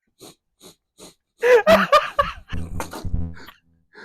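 A man laughing and choking on a drink, with snorting and sputtering as it comes up his nose. The outburst starts about halfway through and ends with a rough, rattling snort.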